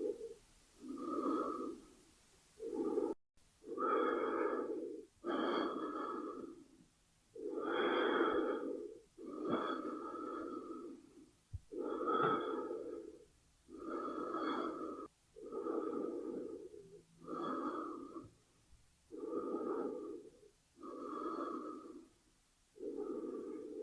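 A person breathing in and out in an even rhythm, one breath sound about every second and a half.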